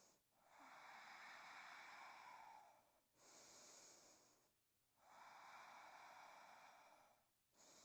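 Near silence, with faint breathing: three slow, drawn-out breaths, each lasting a couple of seconds.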